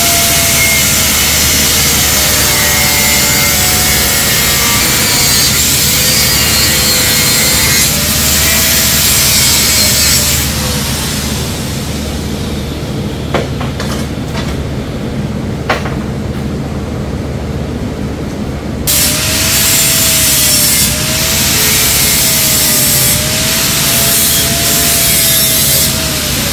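Angle grinder with a cut-off wheel cutting through a steel tube, its motor pitch sagging and recovering as the wheel bites. About ten seconds in the cutting stops for roughly eight seconds, with two sharp knocks, then the grinder cuts again to the end.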